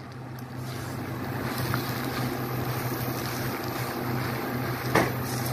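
Rice frying and sizzling in a nonstick wok as it is stirred and scraped with a slotted spoon, over a steady low hum. The spoon knocks once against the pan near the end.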